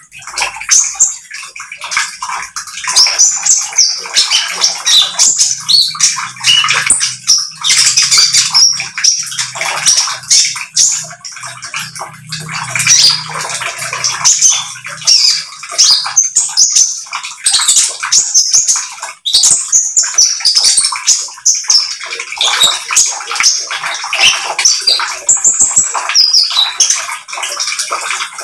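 Caged sunbird (konin) singing a rapid, nearly unbroken chattering song of short, sharp, high notes: the 'trotol' song style.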